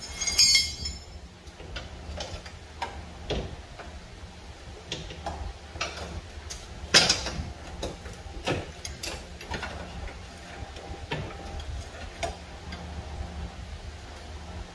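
A steel pry bar clinking and knocking against the front suspension as a stuck part is worked loose: a metal clatter in the first second, then scattered irregular clicks and taps, with one sharper clank about seven seconds in.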